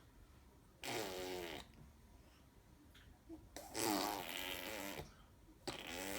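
A five-month-old baby blowing raspberries, buzzing the lips together in three voiced blurts of about a second each that sound much like farts.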